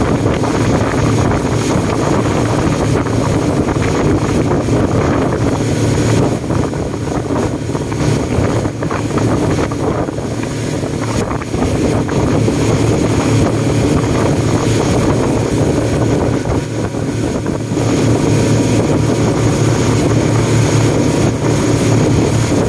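Speedboat's engine running steadily at cruising speed, a loud continuous drone, with water rushing past the hull.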